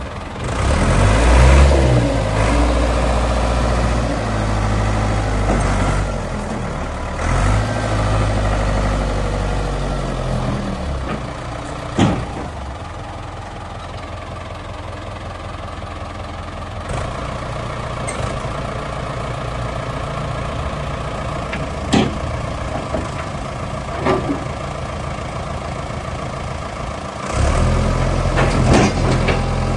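Ford New Holland 655C backhoe loader's diesel engine running, busier and revving for the first ten seconds or so, settling to an idle, then picking up again near the end. A few sharp knocks sound while it idles.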